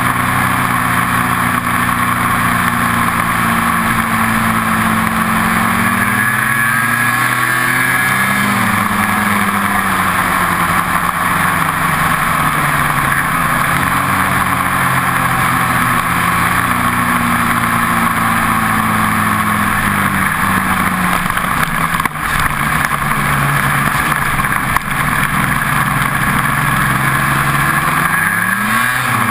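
Ski-Doo snowmobile engine running under way, its pitch rising and falling as the throttle is worked, with a sharp climb in revs near the end.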